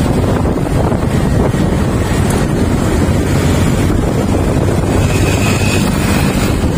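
Steady, loud wind rumble on the microphone of a moving motorcycle, with the bike's engine and road noise underneath.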